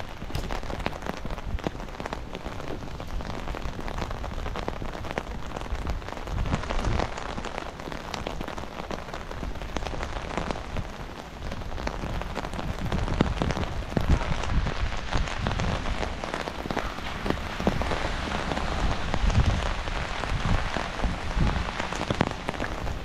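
Steady rain pattering on a nylon umbrella canopy overhead, a dense run of small drop ticks, with occasional low rumbles underneath.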